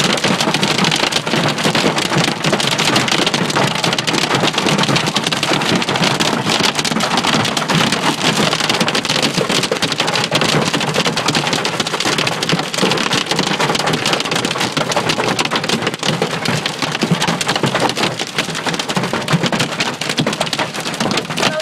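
Hail and heavy rain hitting a car's roof and windshield, heard from inside the cabin: a steady, dense patter of small impacts with no let-up.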